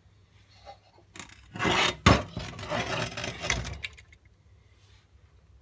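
Scraping and rubbing handling noise that starts about a second in, is loudest just before two seconds in with a sharp knock at about two seconds, and dies away at about four seconds.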